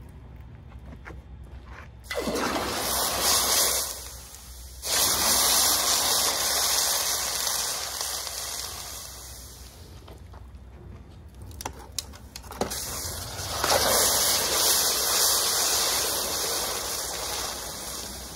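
Hot aluminum casting plunged into a bucket of water, sizzling and hissing as the water flashes to steam against the metal. The hiss starts suddenly about two seconds in, surges again a few seconds later and fades, then returns near the middle after a few clicks and tapers off.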